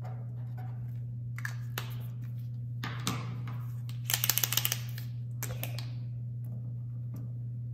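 POSCA paint marker shaken hard, its mixing ball rattling inside in a quick burst of about eight clicks, after a few lighter clicks and a knock of a marker being capped and set down on the table.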